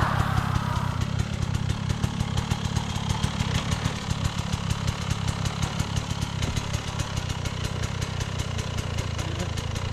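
Two-stroke enduro dirt bike engine idling steadily, its firing an even rapid pulse.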